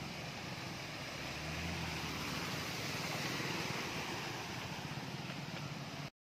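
Motorcycles riding through shallow floodwater on a road: small engines running under a steady rush of spraying water. The sound cuts off abruptly near the end.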